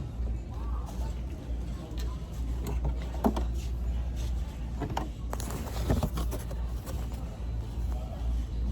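Store background: a steady low rumble with a few light knocks and clacks and faint voices in the background.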